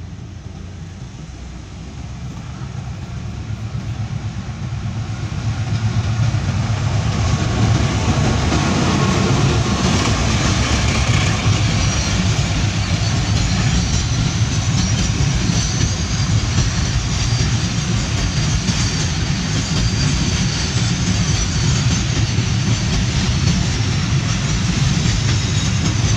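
Diesel-hauled cement freight train approaching, growing louder over the first six seconds or so. Then the locomotive and a long line of covered cement wagons roll steadily past close by.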